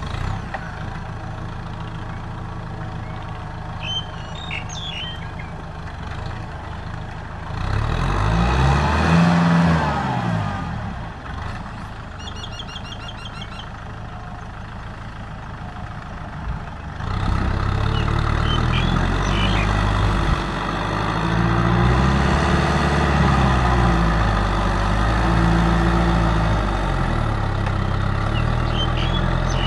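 Kubota M6040SU tractor's diesel engine running under load while it pulls a rotary cultivator through a rice field, its pitch rising and falling several times. It gets louder about two-thirds of the way in.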